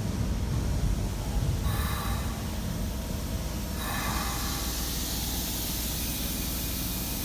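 Commuter train at a platform with a low rumble, then compressed air hissing from its pneumatic system: a short burst about two seconds in and a stronger hiss from about four seconds in that keeps going.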